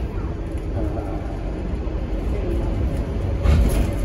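Scania K230UB single-decker bus heard from inside the saloon: a steady low rumble from its rear-mounted engine and the road, with a louder noisy burst about three and a half seconds in.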